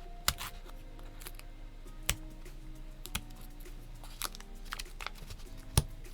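Tape being handled and pressed onto a mechanical keyboard's circuit board: four sharp clicks or snips, the loudest near the end, among faint crinkling, over soft background music.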